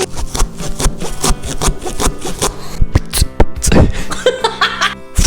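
Mouth-made sound effects in a beatbox style: an irregular run of sharp clicks and short hissing bursts.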